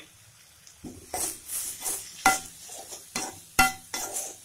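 Spatula stirring onions and tomatoes frying in a metal pan. After a quiet first second it scrapes, with sharp ringing clinks against the pan, the loudest about two and a half and three and a half seconds in.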